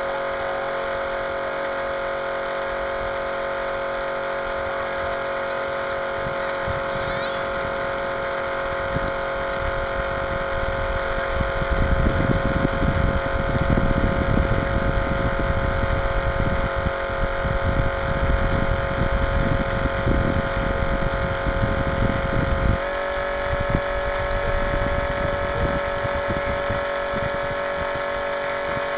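An RC model boat's motor whining steadily at one pitch, heard from on board, with water rushing past the hull and wind buffeting the microphone. The rushing grows louder from about a third of the way in and drops off sharply about three quarters of the way through, when the motor's pitch steps up slightly.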